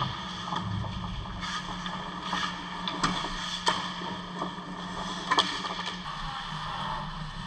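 Ice hockey play on an indoor rink: skates scraping the ice, with sharp clacks of sticks and puck, about three seconds in, again just after, and once more about five and a half seconds in. A steady low hum runs underneath.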